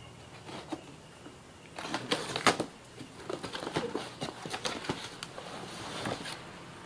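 Cardboard box being torn open by hand, its taped flaps crackling loudly about two seconds in, then rustling and light knocks as the contents are handled.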